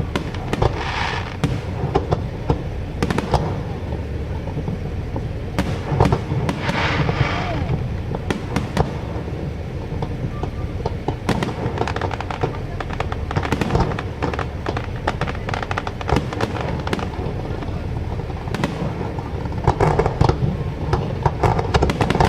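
Fireworks display: dense crackling and popping from bursting shells over a low rumble of booms, with louder bursts about six seconds in and again near the end.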